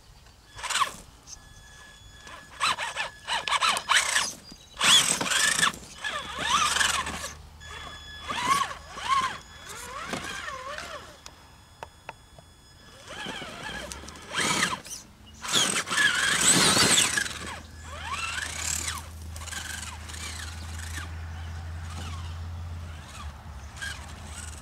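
Traxxas Summit RC truck's brushed 775 electric motor and geartrain whining in short, repeated throttle bursts while crawling over rocks, the pitch rising and falling with each burst. The longest and loudest burst comes about two-thirds of the way through.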